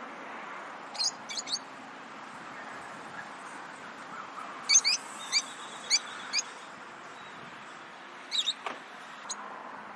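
Lovebirds giving short, shrill chirps in scattered groups: three about a second in, a run of five or six in the middle, and two or three more near the end, over a steady hiss.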